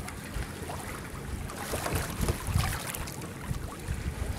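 Wind buffeting the microphone in uneven gusts aboard a small sailboat under sail, with a faint wash of water along the hull.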